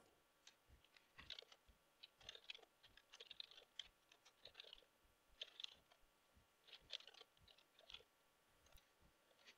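Faint, irregular computer keyboard typing, a few keystrokes at a time with short pauses between.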